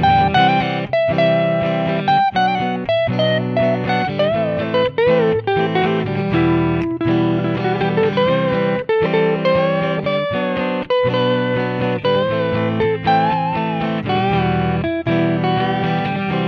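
Electric guitar, a Jackson Kelly KE2, playing a lead melody with sustained, bending notes over a rhythm accompaniment.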